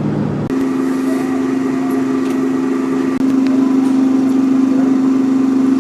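Car engine running at a steady hum, heard from inside the cabin while driving; the pitch shifts slightly about three seconds in.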